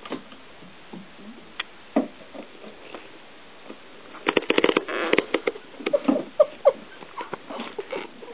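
A kitten's paws pattering and scrabbling on a wooden floor as it scampers about, in scattered light taps with a quick flurry of them a little past the middle.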